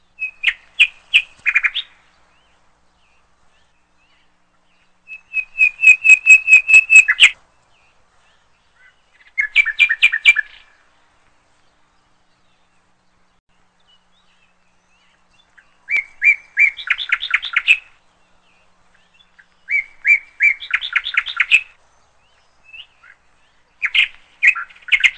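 A small songbird singing in short phrases of quick repeated chirps and trills, six phrases a few seconds apart with quiet between them.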